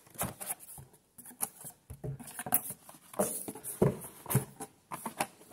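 Cardboard box being opened by hand: irregular scrapes, taps and rustles as the flaps and lid are pulled open and rub against each other.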